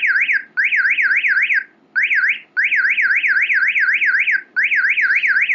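Mobile phone earthquake-alarm app sounding its alarm, set off when the phone senses movement. It is a loud electronic warble sweeping rapidly up and down, about four to five sweeps a second, in runs broken by brief gaps.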